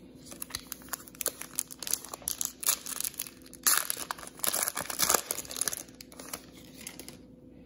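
Foil wrapper of a 2019 Prizm football trading-card pack crinkling and tearing as it is pulled open by hand, loudest about four and five seconds in and stopping near the end.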